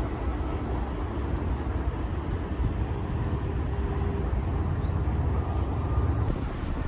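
Steady low rushing noise of a river running high with typhoon floodwater.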